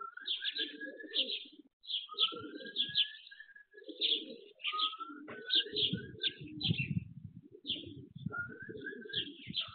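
Domestic racing pigeons cooing at the loft, with small birds chirping over them in quick, repeated high notes and short rising calls.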